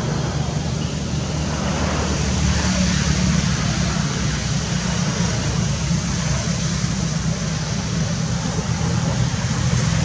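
Steady outdoor background noise: an even hiss with a low, constant hum underneath.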